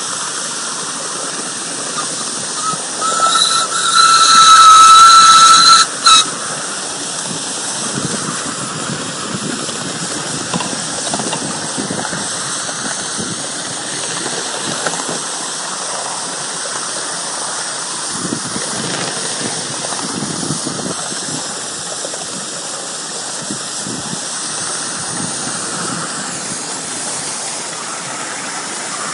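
5-inch gauge C2 Atlantic live-steam locomotive running with a steady hiss of steam. About three seconds in its whistle sounds: a couple of short toots, then a loud blast held for about two seconds, and one more brief toot.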